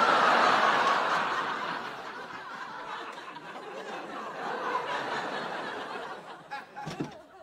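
Sitcom studio audience laughing, loud at first and slowly dying away.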